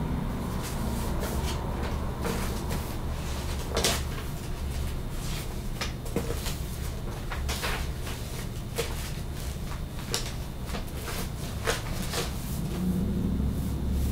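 Paper being handled close to the microphone: scattered light clicks and knocks, a few sharper ones, over a steady low room hum.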